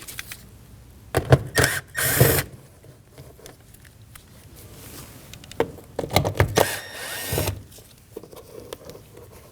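Cordless power driver spinning out two small 7 mm bolts, in two spells of short bursts about four seconds apart, with clicks of the socket and bolts.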